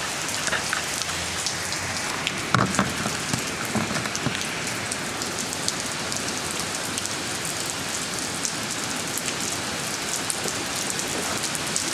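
Steady rain falling on a wet concrete driveway and its puddles: a dense hiss peppered with small drop taps. A brief knock comes about two and a half seconds in.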